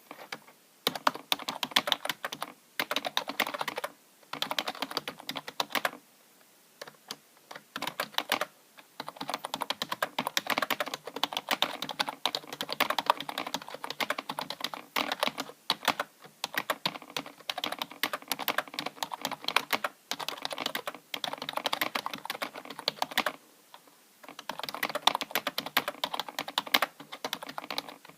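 Typing on a rubber-dome chiclet computer keyboard: fast runs of keystrokes broken by several short pauses.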